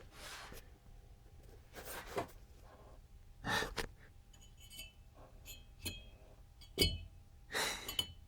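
Audible breaths and sighs while small metal parts clink and click against each other, with one sharper knock late on.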